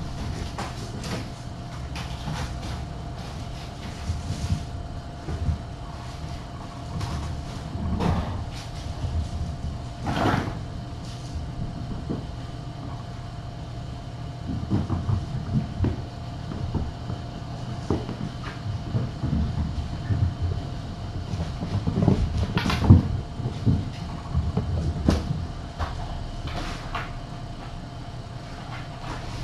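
Irregular soft thumps and knocks of kittens running, pouncing and batting toys about on the floor, over a steady low hum. The sharpest knock comes about two-thirds of the way through.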